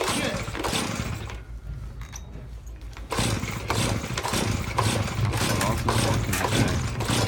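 Small engine of a masonry cut-off saw running steadily, coming in abruptly about three seconds in.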